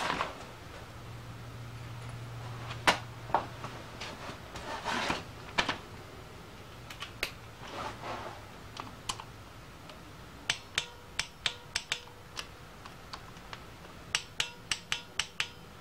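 Clinks of a socket being fitted onto a wrench, then a ratcheting torque wrench clicking in short, evenly spaced clicks, about three a second, as a bolt on the motorcycle engine is turned in.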